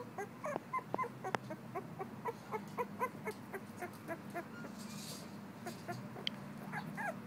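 Young puppy's soft, high squeaks and whimpers, a few a second, thinning out in the middle and picking up again near the end; a newborn-stage pup at about two weeks old.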